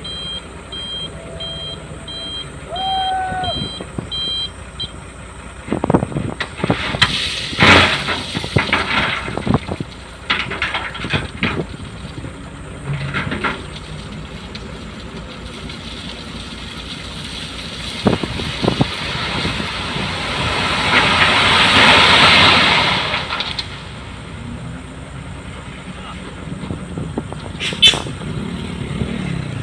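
Heavy road-construction machinery working: a reversing alarm beeps steadily for the first few seconds, then knocks and clanks, and a broad rushing swell rises and fades around twenty seconds in.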